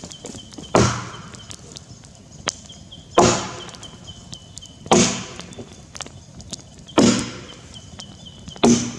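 Tassie pattern axe chopping into a Grey Gum log during bucking: five heavy strikes about two seconds apart, each dying away briefly.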